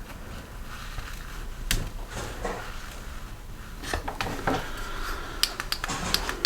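Small metal engine parts and hand tools being handled: scattered light clicks and knocks, with a quick run of sharp metallic clinks near the end.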